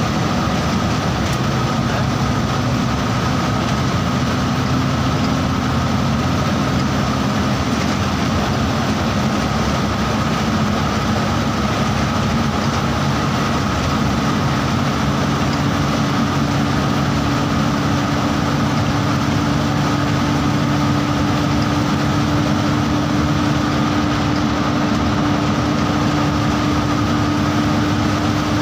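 Bus engine and road noise while the bus drives along steadily, a continuous drone. About halfway through, an engine tone comes in and rises slowly as the bus gathers speed.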